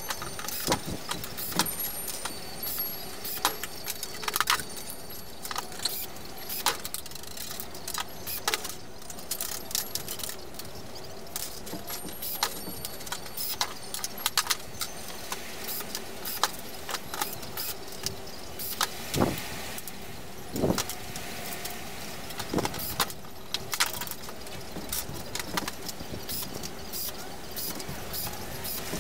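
Thin wire jingling and clinking against a plywood tabletop as it is handled and worked, with irregular sharp clicks and taps.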